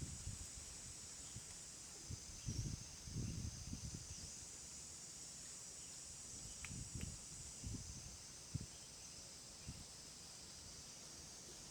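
Faint outdoor ambience: a steady high-pitched insect chorus, with scattered low rustles and bumps and a couple of small clicks about seven seconds in.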